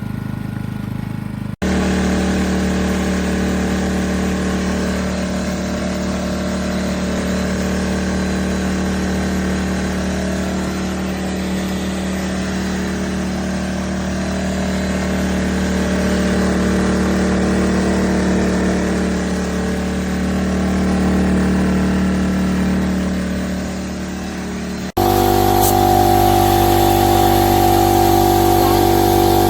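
ERAYAK 2400W inverter generator's engine running steadily. The sound breaks off and changes abruptly twice, about one and a half seconds in and near the end, as at splices.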